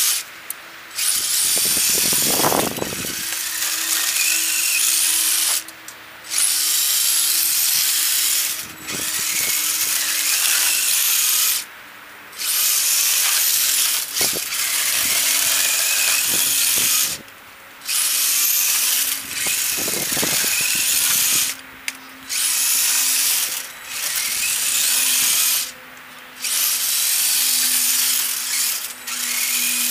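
Electric motor and gears of a radio-controlled plow truck whining in long stretches, with the pitch wavering and gliding, and stopping briefly about every three to six seconds.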